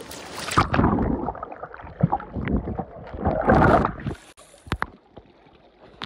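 Water splashing and sloshing as people plunge under in a river pool, in two loud surges, then a few sharp clicks as it settles.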